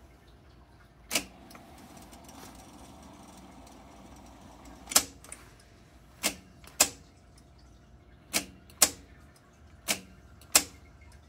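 Transport keys of a Technics 677 cassette deck clicking as they are pressed: about eight sharp clacks, several in quick pairs about half a second apart. Between the first and second clicks there is a faint steady whir of the tape winding.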